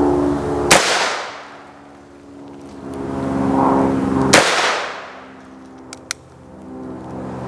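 Two shots from a Ruger Single Six revolver in .17 HMR, sharp cracks about three and a half seconds apart, each followed by a short echo. A pair of light clicks about six seconds in, the hammer being cocked. A steady engine hum drones underneath.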